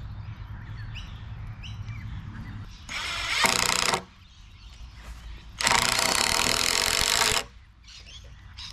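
Cordless impact driver driving self-tapping screws in two runs: a short one about three seconds in and a longer one of nearly two seconds from about six seconds in, with a steady motor whine in each. Birds chirp faintly in the first second or two.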